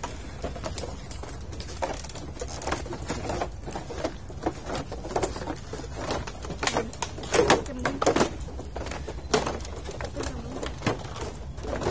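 Footsteps knocking irregularly on wooden boardwalk planks, with birds calling a few times, loudest a little past the middle.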